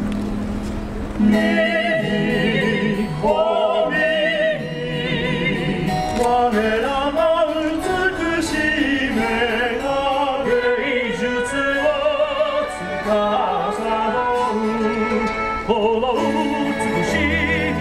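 Stage-show soundtrack: an operatic-style voice singing with strong vibrato over orchestral accompaniment, coming in about a second in.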